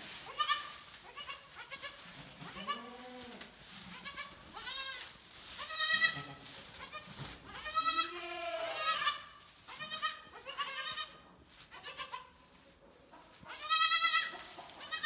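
Newborn goat kids bleating again and again in short, high-pitched calls about once a second, with a few lower calls among them, as the kids try to nurse.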